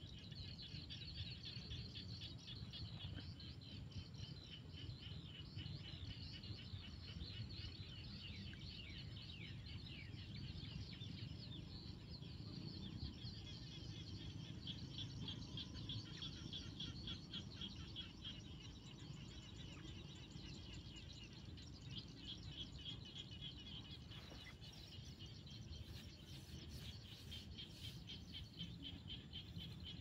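Faint chorus of many frogs calling together in dense, rapid pulsed trills, over a steady low rumble.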